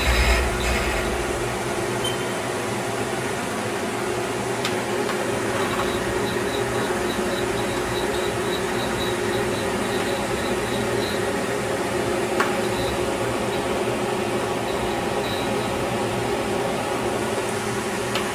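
Steady hum from a powered-up Haas Mini Mill CNC vertical machining centre with its spindle stopped. Faint, evenly spaced ticking at about three a second comes and goes in two stretches near the middle, with a soft thump at the start and an odd click.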